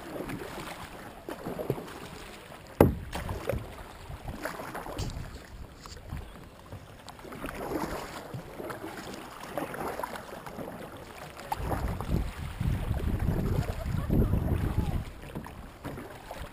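Kayak paddle blades dipping and splashing in the water in irregular strokes, with one sharp knock about three seconds in. From about eleven seconds a low rumble of wind on the microphone comes in.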